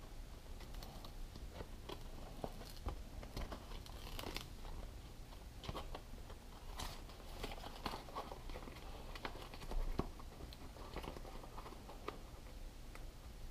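Backing paper crinkling and crackling as it is peeled off a sheet of Shorty's Black Magic skateboard grip tape, with scattered small clicks and rustles as the sticky sheet is handled.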